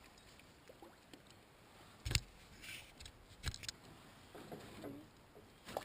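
Two sharp knocks about a second and a half apart, with fainter scuffs between them.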